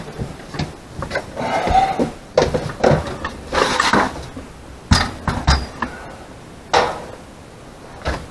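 Sharp clicks, clinks and knocks, with short rustling noises between them, from handling the metal track and door-stop hardware of a sliding barn door.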